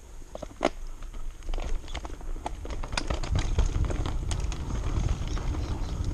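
Santa Cruz Nomad mountain bike riding down a dirt singletrack: tyres rolling over dirt while the chain and frame rattle with sharp clicks. Wind rumble on the microphone builds from about a second and a half in as the bike picks up speed.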